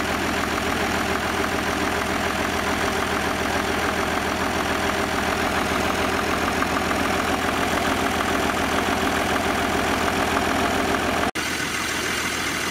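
Gardner diesel engine idling steadily with an even, rapid beat. A sudden momentary drop-out about eleven seconds in, after which it carries on running the same way.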